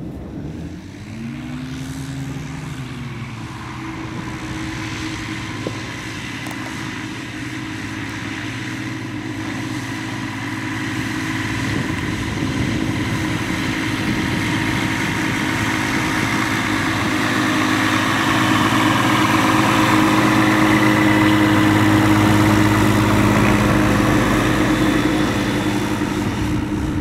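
Rans S-10 light aircraft's propeller engine running as it taxis on grass: a steady engine hum that swings briefly up in pitch and back down about two seconds in, then grows louder through the second half.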